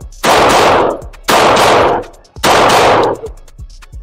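Handgun shots at an indoor range, three about a second apart. Each shot is very loud and rings on with a long echo off the range walls.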